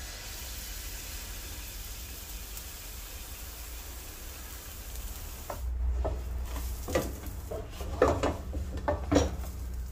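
Pancake batter sizzling in hot oil as it is ladled into a frying pan, a steady hiss. About five and a half seconds in the hiss fades and several separate knocks and clatters follow.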